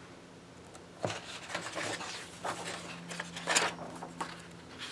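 Paper pages of a paperback coloring book rustling and crackling as a page is turned, starting about a second in, with the loudest crackle about three and a half seconds in.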